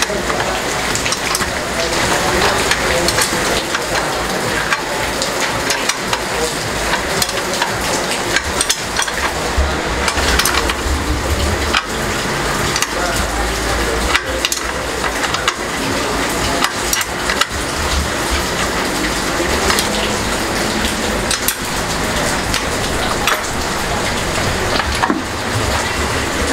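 Steady crackling, sizzling noise with many small clicks scattered through it.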